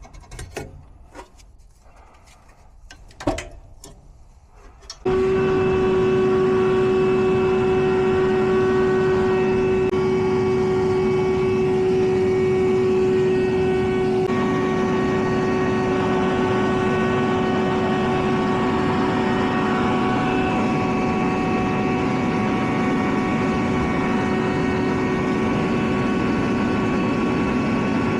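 A few light knocks, then about five seconds in a machine starts running abruptly and keeps up a steady hum with a strong constant tone.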